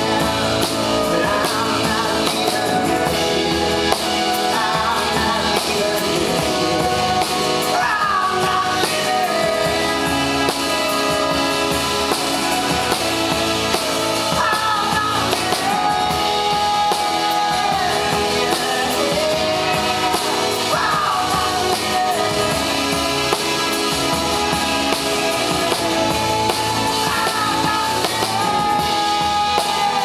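Live band playing: strummed acoustic guitar and drum kit under a man singing, his voice holding long notes several times.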